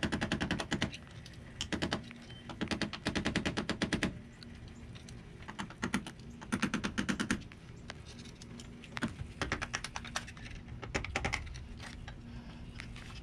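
Hammer rapping on a screwdriver held against the spindle nut of a Dana 60 rear axle hub, metal on metal. The taps come in quick runs of many blows a second, broken by short pauses: the nut is being driven loose without the proper large spindle socket.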